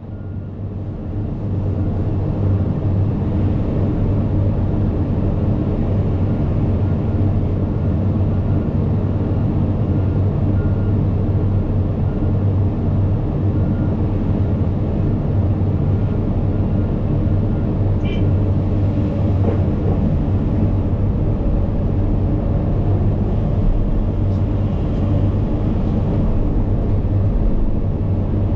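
Cat 395 excavator's C18 diesel engine running steadily while it works, a constant drone that builds over the first two seconds and then holds.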